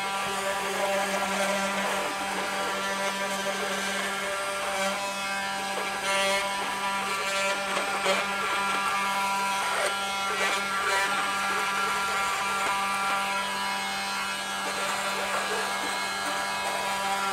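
Milwaukee cordless oscillating multi-tool running steadily with a scraper blade pressed against a plastic boat hull, shaving away gouged plastic around an impact before it is filled; the motor's steady buzz carries small uneven surges as the blade bites.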